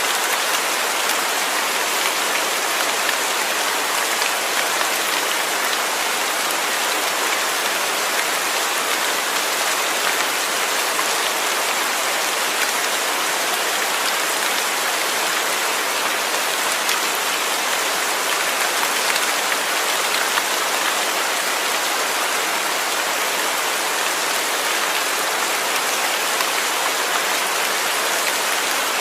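Steady heavy rain falling, an even hiss of many drops with fine patter and no change in intensity.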